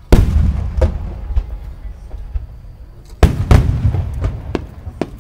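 Aerial firework shells bursting: a heavy boom just after the start and a second pair of booms about three seconds in, each trailing off in a low rumble, with smaller bangs between them.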